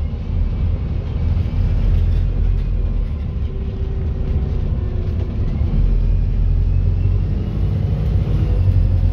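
Interior of a Wright StreetDeck double-decker bus on the move: steady low engine and road rumble, with faint whines that rise and fall above it.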